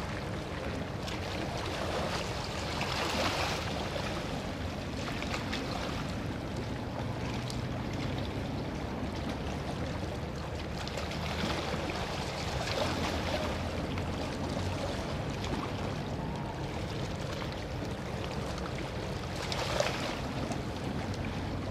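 A boat's engine running steadily, with the rush of water around it.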